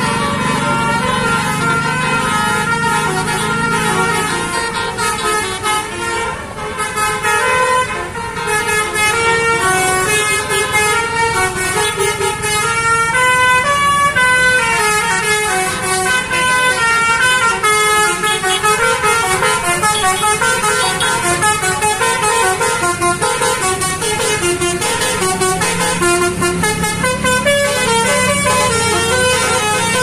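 A tour bus's 'basuri' telolet horn, a set of roof-mounted horn trumpets, plays a loud, unbroken melody of short notes that step up and down in pitch.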